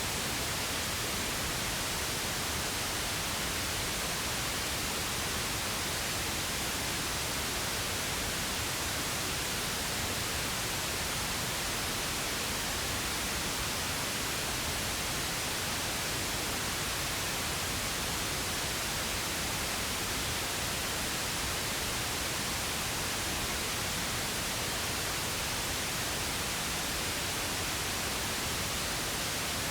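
Steady pink noise: an even, unchanging hiss spread across the whole range, with no events or changes.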